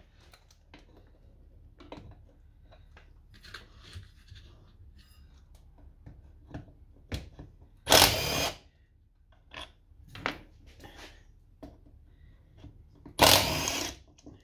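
Cordless drill driver with a 10mm socket running in two short bursts, about eight and thirteen seconds in, undoing bolts on a Honda clone four-stroke engine, with small clicks and knocks of tool and parts between.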